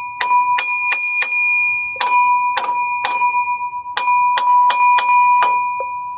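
Hammer tapping on metal, roughly two blows a second in uneven groups, each blow leaving a clear ringing tone, as a pulley stuck fast on the water pump is knocked to free it.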